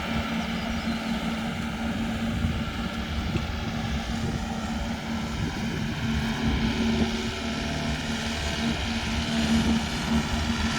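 Engine-driven straw mulch blower running steadily and throwing out straw, a continuous drone with a strong steady hum over a rough low rumble.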